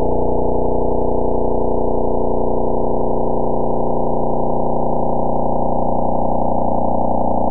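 A radio pulsar's signal played as sound: a steady, fast buzzing drone made of many evenly spaced pitches, dull, with no high tones.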